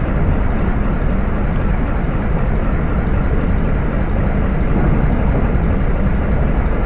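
Steady, loud low rumble of heavy demolition machinery, with noise spread up through the middle range and no distinct impacts.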